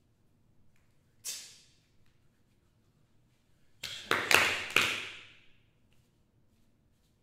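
Body percussion: a single sharp slap-like hit about a second in, then a quick cluster of four hits a little past the middle, the loudest sounds here, each trailing off with a brief hiss.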